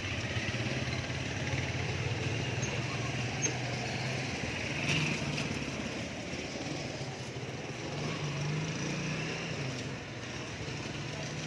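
A small vehicle engine running steadily, its low hum wavering slightly in pitch, with some road and wind noise.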